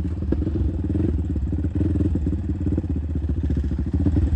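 ATV engine running as the quad is ridden, a low, rapid, even firing beat.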